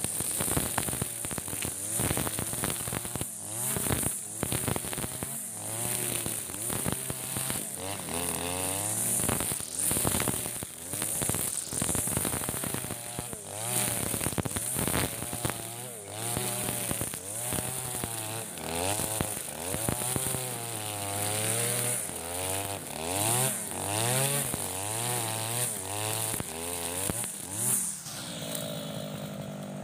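Husqvarna 542RBS 42cc two-stroke backpack brush cutter with a nylon-line trimmer head, revving up and down over and over as the line cuts through tall grass, with sharp ticks of the line striking stems and debris. Near the end the engine drops back to idle.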